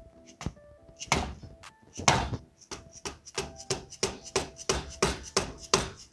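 Soft-faced dead blow hammer tapping the stuck cylinder head of a 1987 Honda TRX250R two-stroke engine to break it loose. Two blows come about a second apart, then a quickening run of about a dozen taps, roughly three a second.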